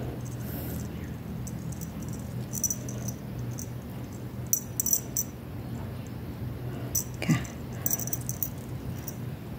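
Faint crackling and rustling of crochet yarn being handled and knotted by fingers close to the microphone, in scattered short clusters over a steady low hum. One short squeak about seven seconds in.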